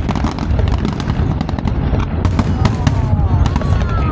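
Fireworks display: a rapid, dense run of cracks and bangs over a continuous low rumble, with a few gliding high tones near the end.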